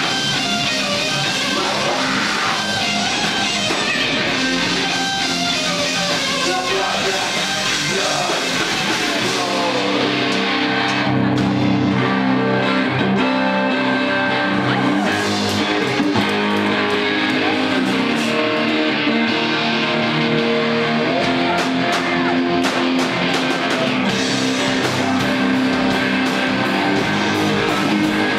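Live rock band playing loud and without a break: electric guitars over a drum kit. About ten seconds in, the guitars move to longer held notes.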